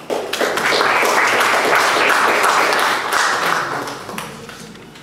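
Audience applauding, loud for about three seconds and then dying away.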